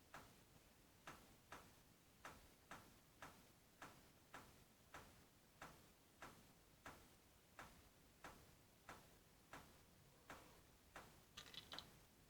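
Faint, regular knocking, about one and a half knocks a second and slowing slightly. Near the end comes a brief cluster of sharper, higher clicks.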